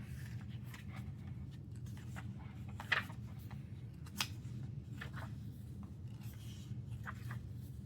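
Pages of an album photobook being turned and handled: soft paper rustles and light taps, the sharpest about three and four seconds in, over a steady low hum.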